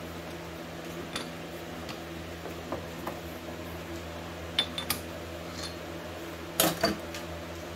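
Metal lathe running with a steady motor hum, with a few light metallic clicks and clinks now and then, the loudest pair near the end.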